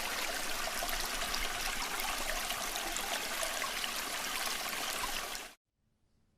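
Running water of a stream, a steady dense rush that stops abruptly near the end.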